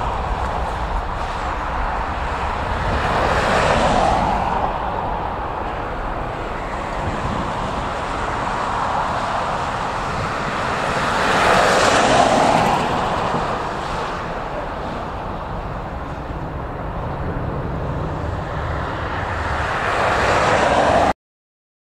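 Airbus A330 Voyager's twin Rolls-Royce Trent 700 turbofans at takeoff power, a steady jet roar through the takeoff roll and climb-out that swells twice as the airliner passes. It cuts off suddenly about a second before the end.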